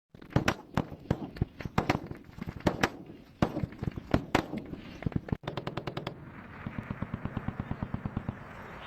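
Battlefield gunfire sound effect: scattered single shots and short bursts of automatic fire at irregular intervals. After a brief cut about halfway through, a quick run of shots gives way to sustained rapid fire over a steady hiss.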